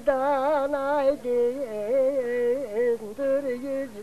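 A single voice singing a slow, heavily ornamented melody, wavering in pitch on each held note, with short breaths between phrases.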